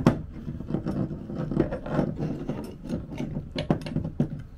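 Screwdriver turning a screw to fasten a metal backup-camera bracket onto an adapter bracket: an irregular run of clicks, scrapes and rattles of metal parts, with a sharp click at the very start.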